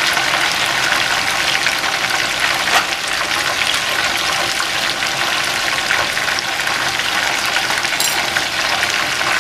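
Chicken deep-frying in a pot of hot oil: a steady crackling sizzle, with one light click near the end.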